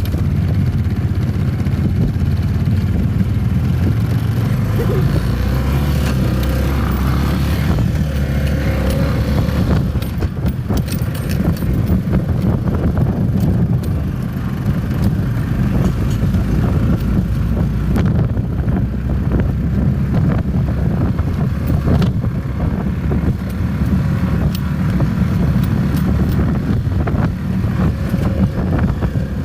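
Four-wheeler (ATV) engine running under way while riding, a steady low drone throughout.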